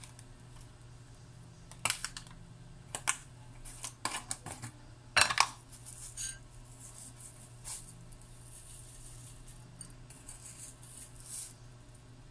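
Dried rosemary shaken from a spice jar into a ceramic bowl of marinade: a scattering of sharp clicks and taps of the jar and a metal spoon against the bowl, with a faint rustle of the falling herb, over a steady low hum.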